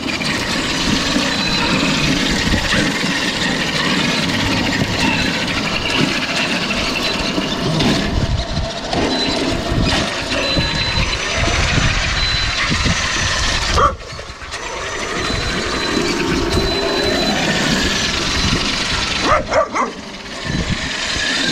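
Wind buffeting the microphone, with an electric RC truck's motor whining in short spurts as it is driven.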